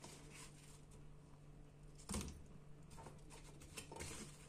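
Quiet kitchen handling sounds: a soft knock about two seconds in and a couple of fainter taps, over a low steady hum.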